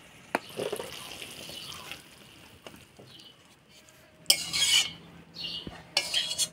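Metal utensil clinking and scraping against a cooking pot as a cooked curry is taken off the stove and dished out. A few light clinks come early, then two louder scrapes about four and six seconds in.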